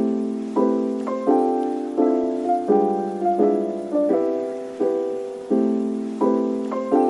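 Background piano music: chords struck at a steady, even pace, each one fading before the next.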